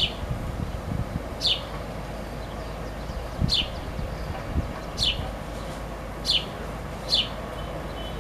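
Baby house sparrow chirping to beg for its mother: six short, high chirps, each sliding down in pitch, repeated every second or so.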